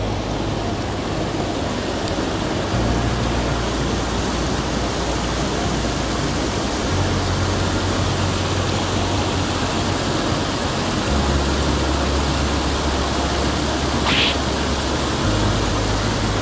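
Steady rushing of a mountain stream, a constant even hiss of running water. Underneath it, low sustained notes change every few seconds, and a short faint sound comes about fourteen seconds in.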